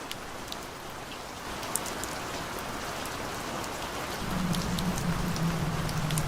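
Steady rain falling, with scattered drop ticks. A low steady hum comes in about two-thirds of the way through and continues under the rain.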